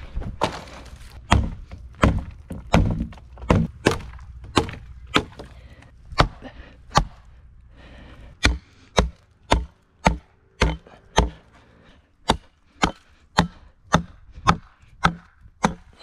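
Hatchet chopping a wooden pole, sharpening its end into a point with a steady run of sharp blows about two a second, broken by two short pauses.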